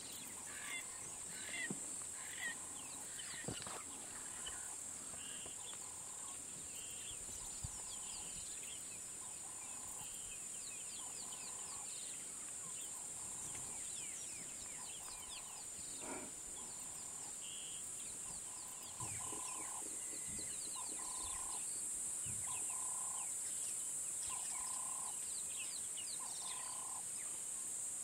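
Bush ambience: a steady high-pitched insect drone, with a bird giving a repeated call about once a second and scattered quick chirps from other birds.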